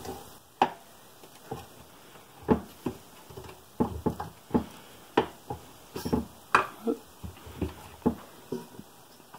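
Irregular light clicks and knocks of aluminium air-compressor parts handled by hand, as the finned cylinder is worked sideways over the piston seal and turned onto the piston.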